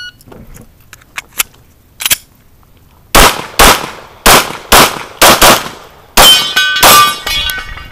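Glock 34 9mm pistol firing about eight shots, mostly in quick pairs, starting about three seconds in. Steel targets ring after the last shots. A few light clicks and knocks come before the first shot.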